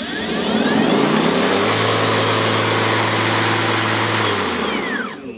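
DeWalt FlexVolt 60V cordless lawn mower's electric motor and blade spinning up with a rising whir. It runs steadily for a couple of seconds with no grass load, then winds down with a falling pitch near the end.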